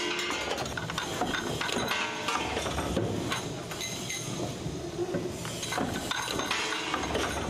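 Cold-forging machinery running: a steady din of rapid metallic clattering, knocking and clinking from the feed and press strokes.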